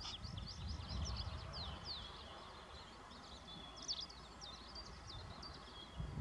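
Birds chirping with many short, high notes and quick up-and-down whistles, over a low rumble that is strongest in the first second and again at the very end.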